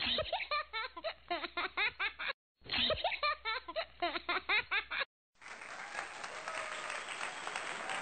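Edited-in laughter sound effect: rapid rhythmic laughing played twice with a short gap between, then a steady noisy wash for about three seconds.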